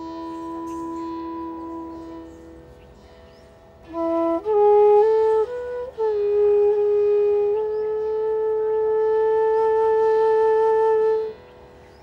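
Background music: a flute-like wind instrument playing slow, long held notes that fade, pause, then return louder about four seconds in, ending on one long held note that stops shortly before the end.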